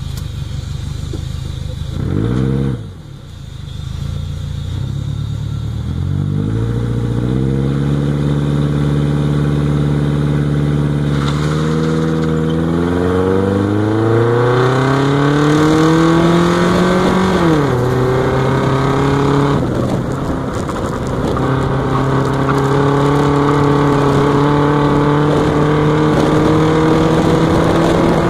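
Car engine idling, blipped once about two seconds in, then pulling away with the revs climbing through the gears. The revs drop sharply at a gearshift about seventeen seconds in, then run steady and slowly rise again.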